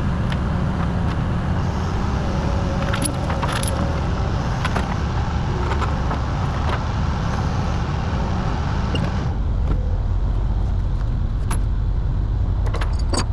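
Kobelco 210 excavator's diesel engine running under load as the machine is driven onto a lowboy trailer, with scattered sharp metallic clanks. About nine seconds in, the higher hiss drops away and the deep engine rumble gets stronger.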